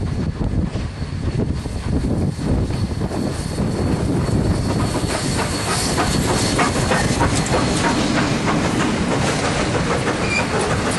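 Two BB18¼ class steam locomotives double-heading a train past close by: a heavy rumble of the engines and running gear that grows louder as the first locomotive draws level about five seconds in, then a quick run of clicks and clatter from the wheels as the second locomotive and the tank wagons pass.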